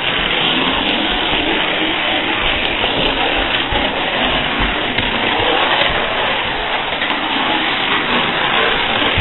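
A long chain of dominoes toppling one after another on a hardwood floor: a fast, steady clatter of tiles knocking and landing on wood.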